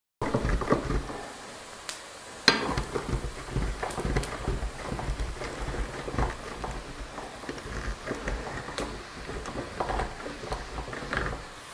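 Cheese being grated by hand on a grater: a run of repeated rasping strokes, with a sharper knock about two and a half seconds in.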